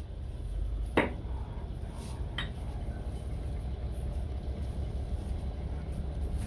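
Kitchen clatter over a steady low hum: a sharp clink or knock about a second in and a lighter click just over a second later.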